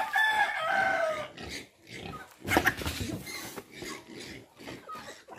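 Pigs in a pen squealing and grunting in irregular calls. There is a long, high, slightly falling squeal in the first second or so and a harsher, louder call about halfway through.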